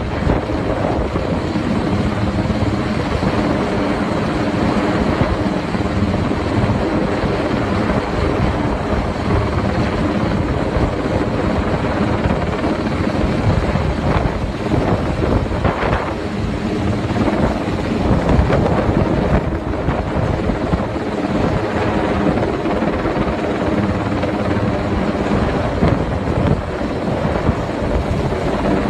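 Helicopter hovering low overhead, its rotor chopping steadily and loudly while it lifts a heavy load on a long line.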